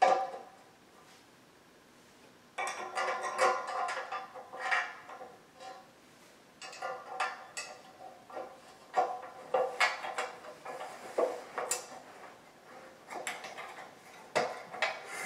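Steel bed-frame rails clinking and rattling as they are handled and fitted together by hand, in bursts of clanks with short ringing, starting about two and a half seconds in.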